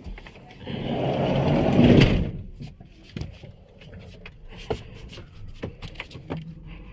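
City bus noise: a loud surge of engine and road noise lasting about a second and a half, then a low rumble with scattered knocks and rattles.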